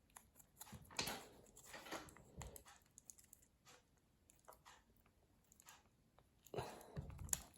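Faint, scattered small clicks and scrapes of a Phillips screwdriver turning the pivot screw into the bolt of a folding pocket knife, with a few more clicks near the end.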